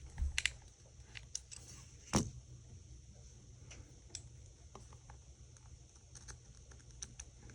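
Small clicks and taps of tiny phone screws and parts being handled and set down during iPhone 5 reassembly, with one sharper knock about two seconds in.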